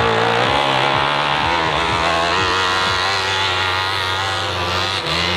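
Off-road dirt bike engines running under load, revving up and down as the bike climbs a steep dirt hill. There is a short break in the sound about five seconds in.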